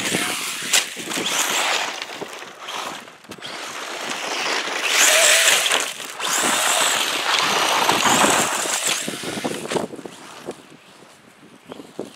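Traxxas Slash 4x4 VXL radio-controlled short-course truck driving hard on a loose dirt track: its brushless electric motor whines up and down while the tyres scrabble through dirt and gravel. It is loudest in the middle and fades near the end as the truck moves away.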